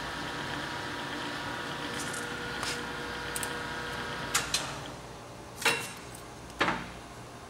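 Mori Seiki MS-850 engine lathe running in low range at about 82 RPM: a steady gear hum with a faint whine. Past the middle, three sharp metallic clunks come as the controls are worked to change speed, and the running sound drops quieter.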